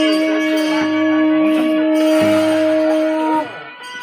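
A horn blown in one long held note that cuts off about three and a half seconds in, with shorter, deeper horn notes starting about a second in and again about two seconds in.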